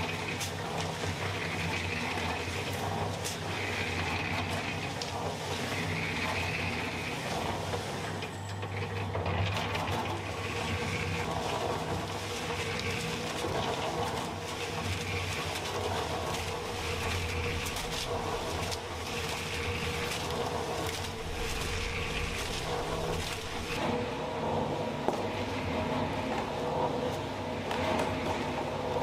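Electric concrete mixer running: a steady motor hum with the sand-and-cement mix tumbling in the turning drum in a regular swish about every second and a half. Short scrapes of a shovel in sand come through on top.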